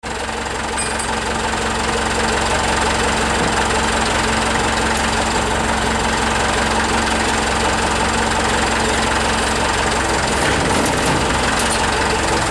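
Forklift engine idling steadily, with a slight change in its note about ten seconds in.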